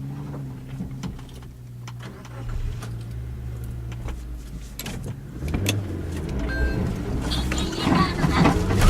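Suzuki Jimny's engine running at low revs, its note shifting a little, with scattered knocks and rattles; the clatter grows louder near the end.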